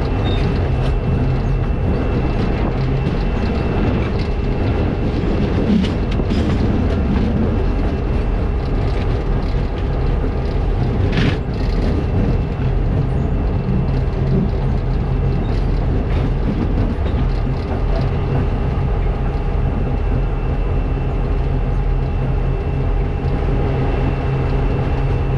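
Diesel locomotive engines running steadily as a coal train rolls along the line, with wheel-and-rail running noise mixed in. A short sharp sound about eleven seconds in.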